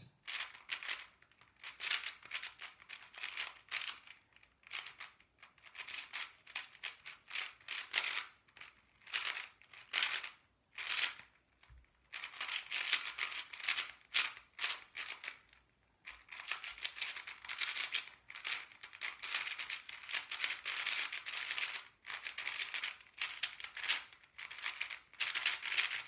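A magnetic Angstrom Aosu GTS2 M 4x4 speedcube being turned fast, with layers clicking and clacking in rapid runs broken by short pauses.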